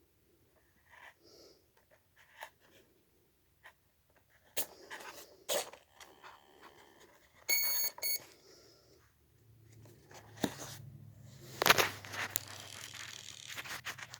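Clicks and rustling of the model being handled, with two short electronic beeps about halfway through. A low steady hum then starts and runs under further clicks, the loudest a sharp click a little before the end.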